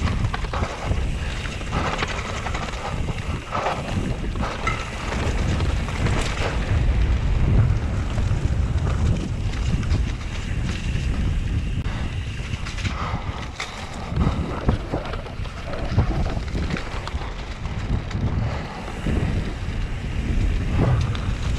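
Mountain bike riding fast down a dirt flow trail: wind buffeting the microphone over a steady rumble of the tyres, with frequent short knocks and rattles from the bike over bumps.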